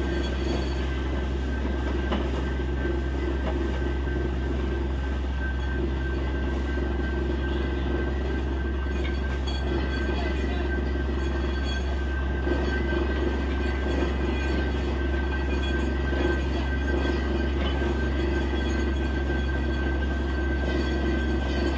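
Truck-mounted borewell drilling rig running steadily under load, its engine and drilling machinery giving a constant drone with a steady high whine. Compressed air is blowing water and rock cuttings up out of the borehole.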